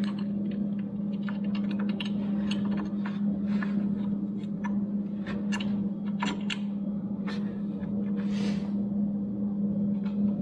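Scattered light clicks and clinks of tools and metal saw parts being handled over a steady low hum, with a short hiss near the end.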